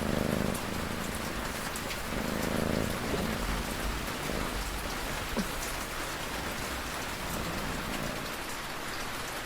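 Steady rain falling, with a cat's low snores breathing in now and then, at the very start and again about two seconds in.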